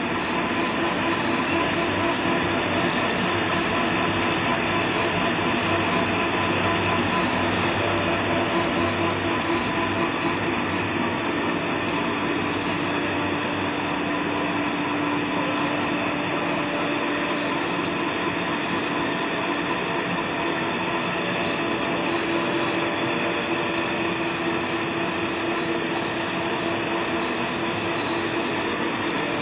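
Writing-paper rewinding machine running steadily, its steel rollers turning as a large paper roll winds: a constant mechanical drone with a few steady tones in it.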